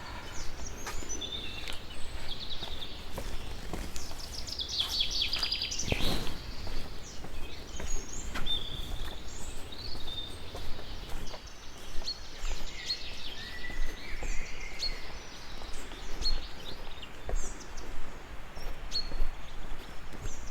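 Forest birds chirping and trilling on and off over a steady low rush of background noise, with one sharp thump about six seconds in.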